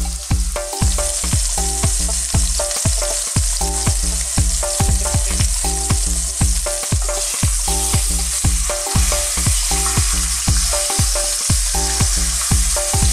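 Beef tenderloin medallions sizzling in hot olive oil in a heavy-bottomed pan, a steady high frying hiss as they sear. A steady low musical beat runs underneath.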